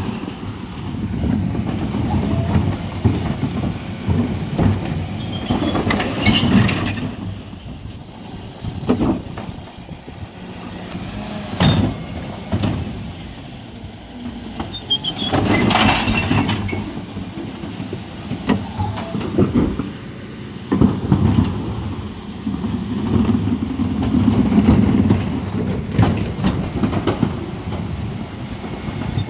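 Mercedes Econic refuse lorry emptying wheelie bins: its diesel engine runs steadily while the rear Terberg bin lift raises and tips blue recycling bins, with repeated knocks and clatter of the bins and their contents falling into the hopper.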